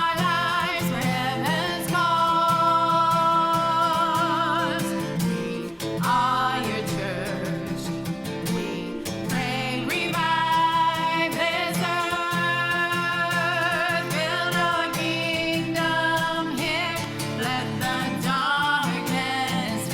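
A contemporary worship song: a singer holding long notes with vibrato over steady instrumental accompaniment.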